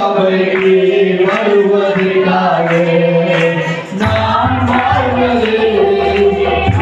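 A man singing a worship song into a microphone through a PA system, holding long notes. Electronic keyboard accompaniment with a low bass line joins about four seconds in.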